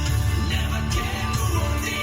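A song with singing and a strong bass line playing through the 2016 Mitsubishi Montero Sport GLS Premium's factory audio system, heard inside the cabin through a phone's microphone.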